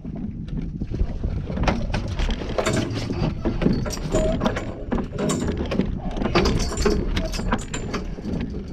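Irregular clicking and clattering of fishing gear being worked on a boat deck while a fish is reeled in, over a steady low rumble from the boat.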